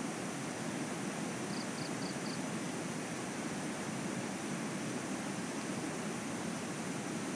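Steady rushing noise, like flowing water or wind, with four quick high chirps about one and a half seconds in.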